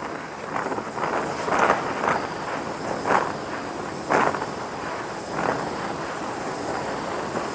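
Handheld gas torch burning with a steady hiss, its flame played over the beech wood tote of a hand plane to scorch the wood, swelling briefly several times.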